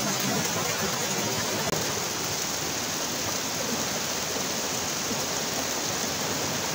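Natural spring water splashing down a rock face and trickling through grass: a steady rush, broken by a brief dropout a little under two seconds in.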